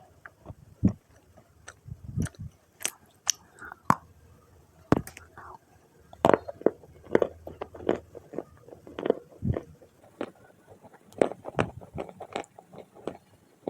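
Dry red clay being bitten and chewed close up: soft, irregular crunches, several a second at times, with short gaps between bites.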